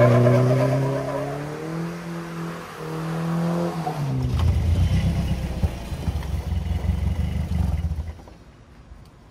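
Old minivan's engine revving hard, its pitch dipping and rising, then a lower, rougher engine note for about four more seconds as the van drives off. The sound cuts off suddenly about eight seconds in.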